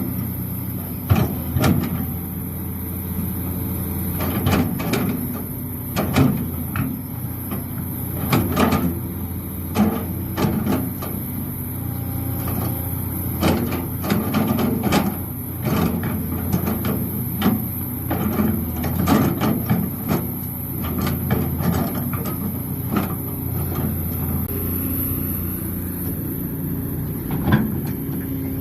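Heavy excavator running steadily, with repeated sharp metallic knocks and clanks scattered throughout.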